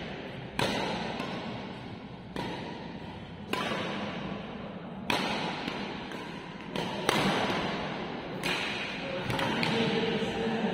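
Badminton rackets smacking a shuttlecock back and forth in a doubles rally, about nine sharp hits every one to two seconds, each echoing briefly in the hall.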